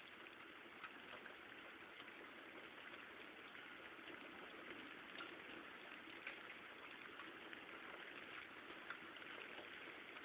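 Steady rain falling, with scattered drops ticking close by now and then.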